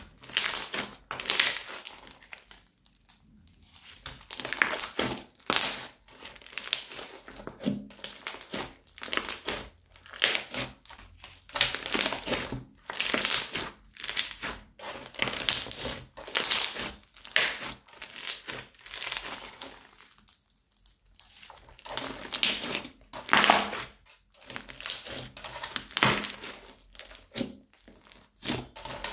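Crunchy slime squeezed and kneaded by hand: a run of crackling, crunching squishes about once a second, with a couple of short pauses.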